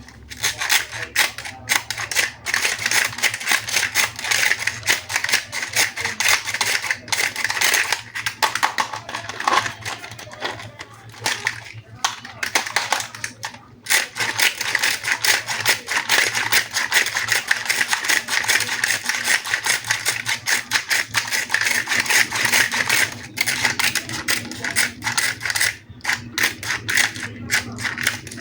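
Plastic toy packaging crinkling and rustling as it is handled: a dense, continuous crackle of quick clicks, dropping off briefly twice around the middle.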